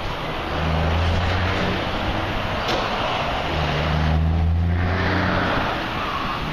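A motor vehicle engine running close by: a steady low hum that swells and eases a little, over constant road and wind noise.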